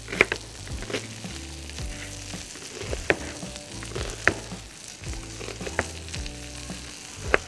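Potatoes and chorizo sizzling on a hot flat-top griddle, with a chef's knife dicing an onion on a plastic cutting board: sharp knocks every second or two, at uneven intervals.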